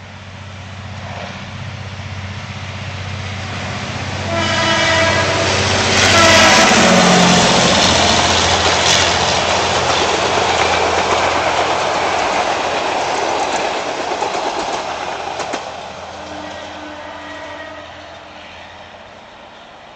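Locomotive E.706 draws near, running louder, and sounds its horn about four seconds in for roughly three seconds, the pitch dipping as it passes. The train of passenger coaches then rolls by close with a clickety-clack of wheels on the rails, fading as it moves away.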